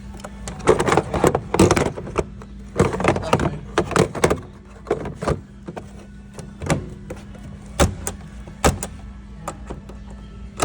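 Plastic parts of a display washing machine being handled: a rapid run of clicks, knocks and clatters for the first five seconds or so, then a few single knocks.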